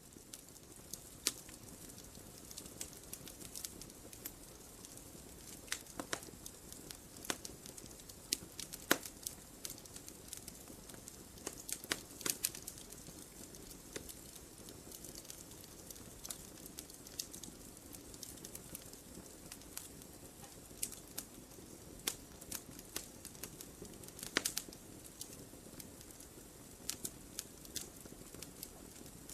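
Wood fire burning in a fireplace: a steady soft hiss with irregular crackles and sharp pops, a few of them louder snaps.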